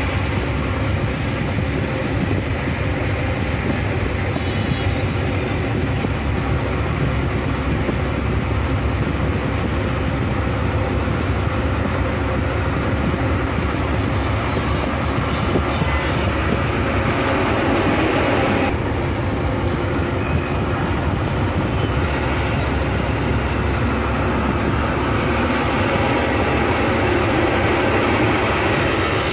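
Steady engine and road rumble heard from inside a moving bus on a highway, with tyre and wind hiss over a deep drone. About two-thirds of the way through it briefly grows brighter and louder.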